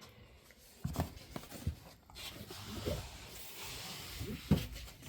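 Firework boxes and packaging being handled and shifted: a few dull knocks with a scraping, rustling sound between them.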